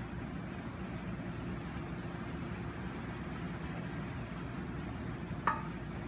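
Steady low background rumble, with one short, sharp clink that rings briefly about five and a half seconds in.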